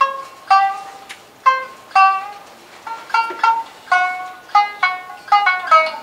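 Shamisen played alone: single plucked notes that ring and fade, spaced out at first, then quicker runs of notes from about halfway. This is the instrumental accompaniment to a kouta.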